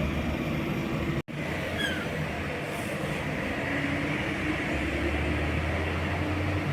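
Steady low hum and rumble of a running vehicle with road noise, cut off for an instant about a second in, then continuing.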